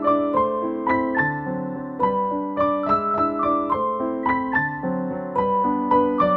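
Background piano music: a gentle melody of separate notes played a few to the second over held chords.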